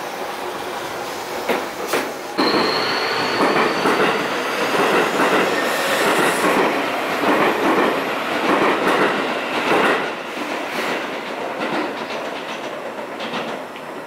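Seibu electric commuter train running past over station track and pointwork, its wheels clattering over rail joints, with a thin, high wheel squeal for a second or two. It is loudest from about two seconds in and fades after about ten seconds.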